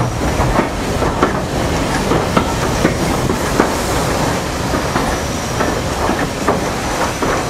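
Carriage wheels of a steam-hauled train rolling slowly, clicking irregularly over rail joints and points under a steady rumble, heard from an open carriage window.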